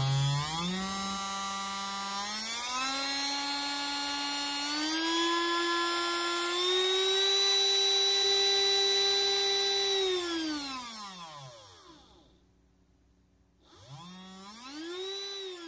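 Large brushed DC motor, probably a 12-volt one, spinning under power from an adjustable DC supply. Its whine rises in steps as the voltage is turned up, holds steady, then winds down and stops about eleven seconds in. Near the end it briefly spins up again and starts to wind down.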